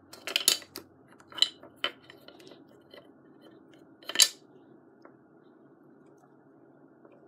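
Small plastic toy figures being set down and moved on a hard desk top: a few light clicks and taps in the first two seconds, a louder clack about four seconds in, then only faint room hum.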